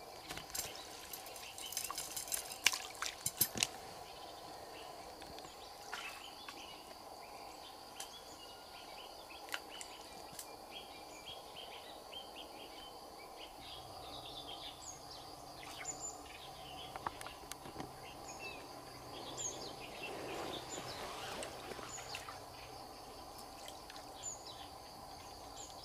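Rattling and knocking for the first few seconds as a fish is handled into a mesh keep net. Then quiet outdoor ambience: short high bird chirps at intervals over a faint steady insect drone.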